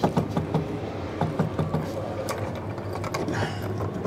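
Ford BoxLink tie-down cleat being slid up into its bed-wall bracket, making a few sharp clicks and scrapes of metal against the bracket, most of them in the first second. A steady low hum runs underneath.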